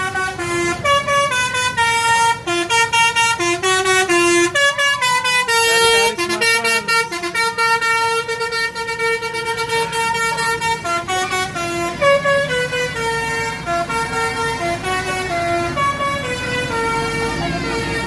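Basuri "telolet" multi-tone bus air horn playing a rapid melody. Several pitches sound at once, and the notes change every fraction of a second without a break.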